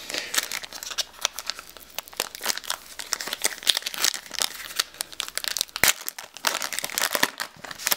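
Metallic-foil trading-card booster pack wrapper crinkling densely as it is handled and torn open, with a brief lull about six seconds in.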